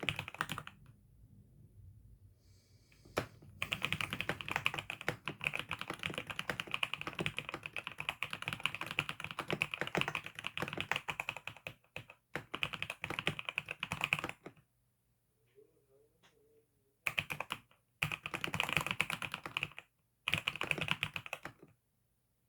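Typing on a newly bought computer keyboard: rapid, continuous keystrokes in several runs, broken by short pauses, the longest a few seconds after the middle.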